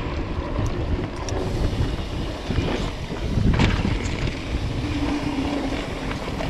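Wind buffeting the camera microphone over the rumble of a mountain bike rolling along a dirt single-track trail, with one louder jolt about three and a half seconds in.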